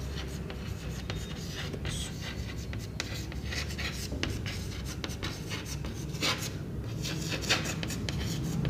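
Chalk writing on a chalkboard: an irregular run of short scratches and taps as the letters are written.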